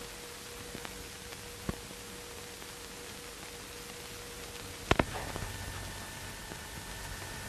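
Steady hiss of an old film soundtrack, with a faint click about two seconds in and two sharp knocks in quick succession about five seconds in.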